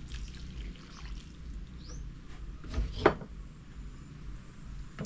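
Water poured from a mug onto grated coconut in a bowl, a soft trickle, with a couple of light knocks about three seconds in.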